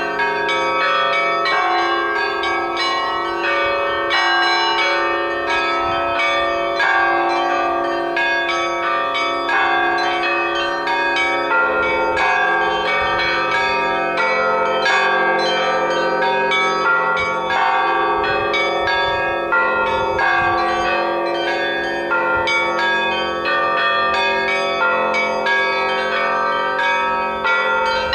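Russian Orthodox church bells ringing together in a kolokolny zvon: several bells struck in quick succession, many overlapping tones ringing on without a break.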